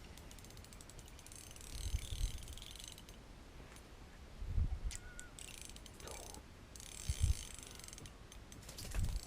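Fishing reel clicking and ratcheting in spells while a big walleye is fought on the line, the reel being cranked and the drag giving line. A few short dull low thumps come in between.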